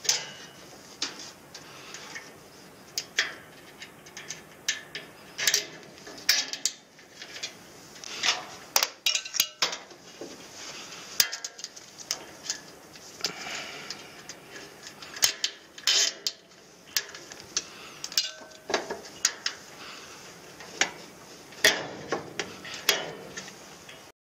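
Irregular clicks, taps and rattles of wiring and plastic clips being handled against the sheet-metal frame of an air-conditioner unit, with a few sharper, louder clicks scattered through it.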